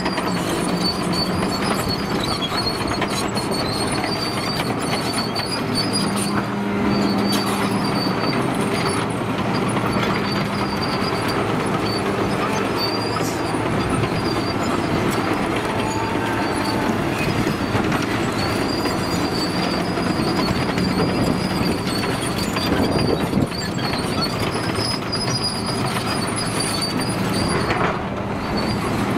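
Caterpillar 953C track loader travelling over dirt, its diesel engine running steadily while the steel tracks clank and give a high squeal that comes and goes.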